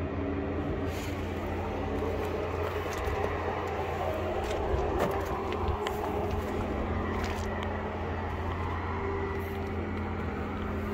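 An engine running steadily at idle, a low even hum, with a few faint clicks and knocks on top.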